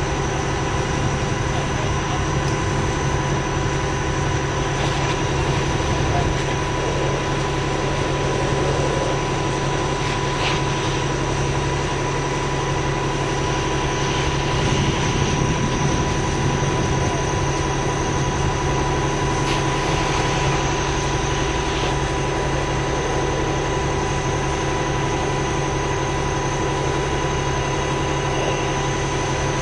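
Heavy engine running steadily at idle, a constant drone with a steady hum that neither rises nor falls.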